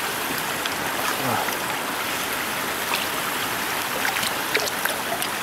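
Steady rush of water running through a small dam, with small splashes and drips as a hooked pole is worked in the water.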